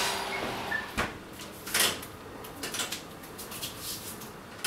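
Metal baking tray pulled out of a wall oven, with a knock, a short scrape of the tray on the oven rack and a few light clicks, then the oven door pushed shut with a sharp knock at the end.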